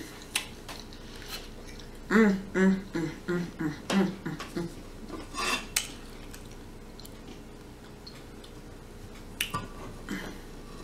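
Metal fork clicking and scraping against a plate as food is picked up, with a run of short closed-mouth hums about two seconds in.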